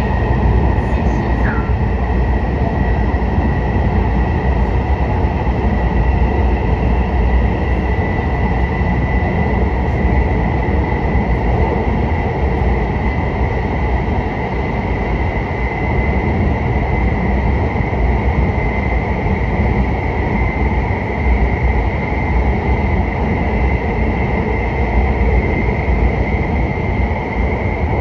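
Taipei Metro EMU101 metro train running at speed through a tunnel, heard from inside the car: a steady rolling rumble with a high whine that edges slightly upward in pitch.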